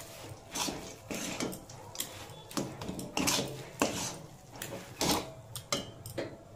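Metal spatula scraping and knocking against a metal kadai while stirring and pressing a thick, moist vegetable-chop filling, in irregular strokes roughly twice a second.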